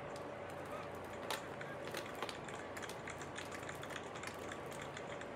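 Deco mesh ribbon being bunched and handled, rustling and crinkling, with scattered light ticks and taps.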